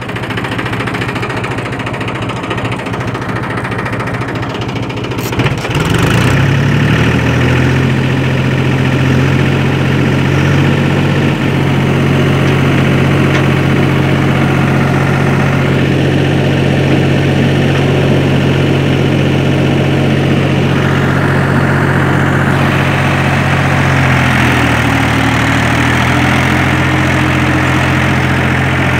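Mahindra tractor's diesel engine running as the tractor drives. It runs slower and rougher for the first five seconds, picks up speed about six seconds in and holds a steady, higher speed, dipping briefly near the end.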